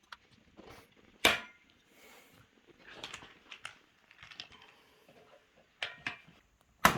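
Caster wheel being pushed and knocked into the bottom of the wardrobe's frame tube: scraping and handling noise with sharp knocks, the loudest about a second in and just before the end.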